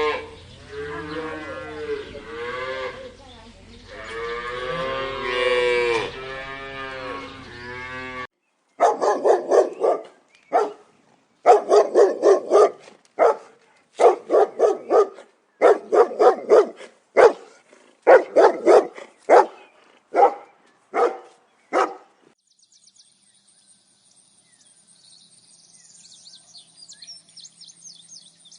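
Cattle mooing: several long, drawn-out moos over the first eight seconds. Then a different animal gives a rapid series of short, sharp calls in clusters for about thirteen seconds, and a faint high buzz comes in near the end.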